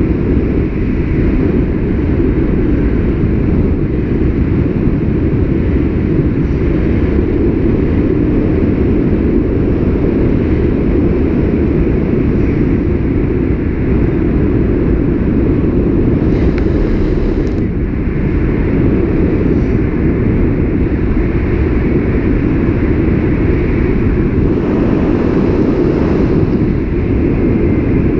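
Wind buffeting a skydiver's camera microphone while descending, a steady low rush with two brief hissier gusts, one a little past the middle and one near the end.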